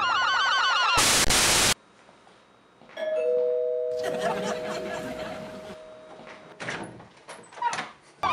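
Rock music with a wavering guitar line cuts off about a second in, followed by a short loud burst of noise. About three seconds in, a two-note ding-dong doorbell chime rings and fades over a few seconds, with a few faint clicks and knocks near the end.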